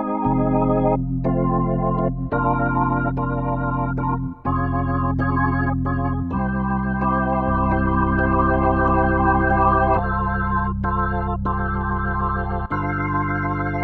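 Organ music: held chords with a slight wavering vibrato, moving to a new chord every one to three seconds.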